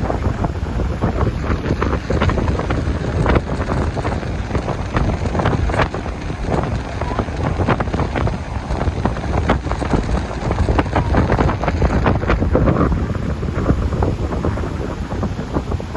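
Wind buffeting the microphone: a continuous low rumble broken by frequent short crackles.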